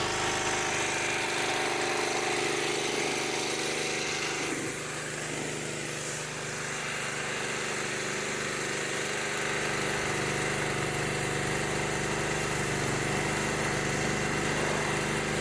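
Pressure washer running steadily, a motor hum under a hiss; the hiss grows stronger about four and a half seconds in.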